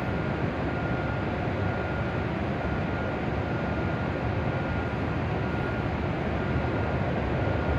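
Steady hum and whir of a stopped E7/W7-series shinkansen's on-board equipment at the platform, under the station's high roof, with a faint high-pitched tone that comes and goes.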